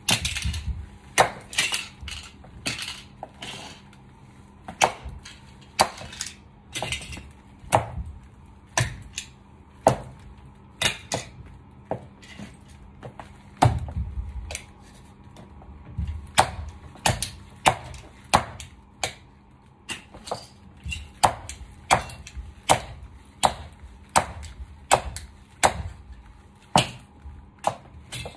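Stiletto heels stamping on toy cars and a tiled floor: a string of sharp cracks and clacks, roughly one a second and unevenly spaced, as the cars' plastic breaks under the heels.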